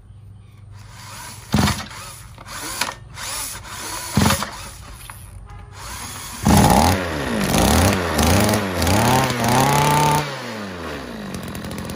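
Komatsu Zenoah two-stroke brush cutter engine running unloaded. It runs low at first, with two sharp knocks. About halfway through it is revved up and down about five times in quick succession, then drops back to a lower speed.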